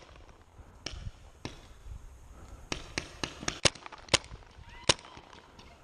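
Paintball markers firing: about nine sharp pops at uneven intervals, several in quick succession around the middle.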